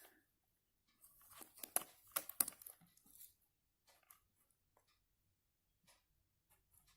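Faint handling noises as a capacitor is put to a multimeter's test leads: a cluster of rustles and small clicks about a second in, lasting about two seconds, then a few scattered faint ticks.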